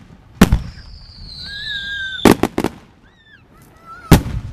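Aerial fireworks bursting: a sharp bang about half a second in, a quick cluster of three a little after two seconds, and another loud bang near the end. A long high whistle, falling slightly in pitch, runs between the first bang and the cluster.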